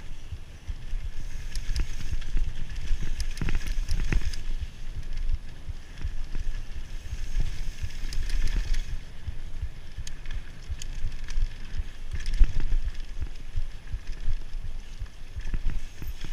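Mountain bike descending a dirt forest trail at speed: tyres rumbling over the dirt with scattered clicks and rattles from the bike, and wind buffeting the camera microphone.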